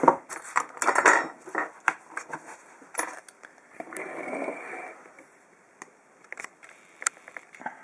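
Small metal lock parts and tools handled on a work surface: a quick run of light clicks and taps, a brief scraping about four seconds in, then a few scattered clicks with one sharper one near the end.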